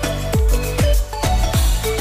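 Upbeat background music with a steady, deep beat about twice a second under a simple repeating melody.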